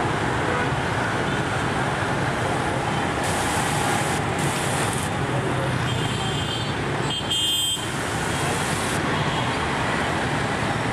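Dense street traffic of motor scooters and cars: a steady drone of small engines and tyres, with short horn beeps about six and seven seconds in.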